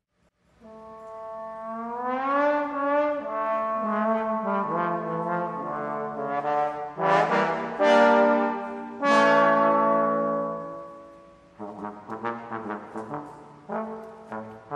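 Trombone trio playing: held chords enter with upward slide glides, swell to loud sustained chords, then fade. About three-quarters of the way through they break into short, detached notes.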